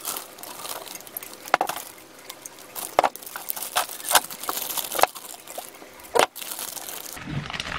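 Plastic bags rustling and crinkling as a fruitcake loaf is wrapped and bagged, with scattered sharp crackles and clicks of the film being handled.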